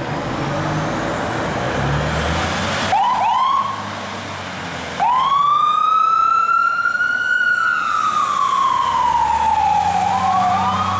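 Fire engine passing with its diesel engine rumbling, then its siren gives quick short chirps about three seconds in. About five seconds in the siren starts a long wail that rises slowly, falls over several seconds, and begins to rise again near the end.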